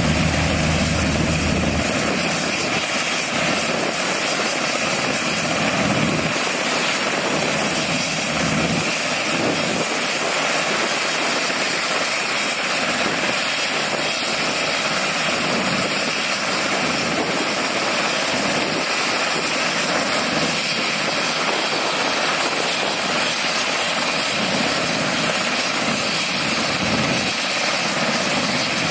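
UH-60 Black Hawk helicopters running: the steady noise of main rotors and twin turboshaft engines as one hovers low and sets down while another sits with its rotors turning. A deep low rumble drops away about two seconds in.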